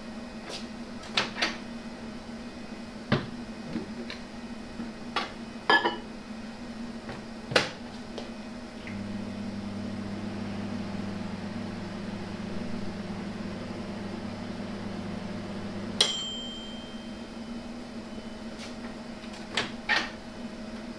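Daewoo microwave oven being worked: several clicks and knocks of the door and dials, then the oven running with a steady low hum for about seven seconds, which ends in a single ringing bell ding. A few more clicks follow near the end.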